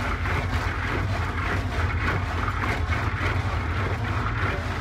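Steady low engine rumble under a constant hiss of street background noise.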